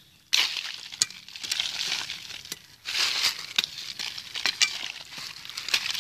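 Dry fallen leaves crackling and crunching under footsteps, in uneven surges with sharp little snaps, starting abruptly just after the start.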